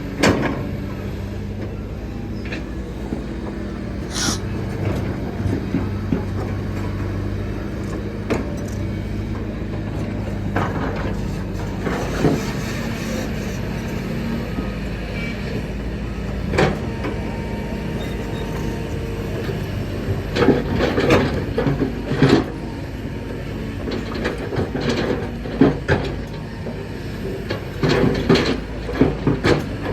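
Kobelco excavator's diesel engine running steadily, with scattered sharp knocks and clatter of the bucket on rock that come more often over the last ten seconds.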